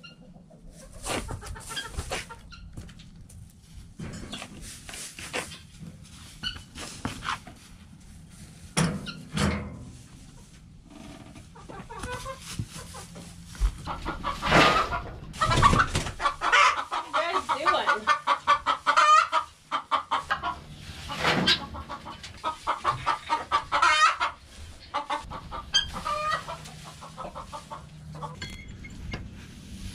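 Hens clucking repeatedly in short calls, busiest through the middle of the stretch, with scattered knocks and rustles.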